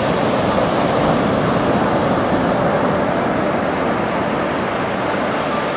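A steady rush of wind and water noise, even and unbroken.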